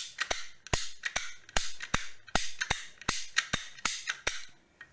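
Ratchet of a hand-held PVC/CPVC pipe cutter clicking as its handles are squeezed and released over and over, the pawl stepping along the gear and closing the blade notch by notch. There are about fourteen sharp metallic clicks at roughly three a second, with a short pause near the end.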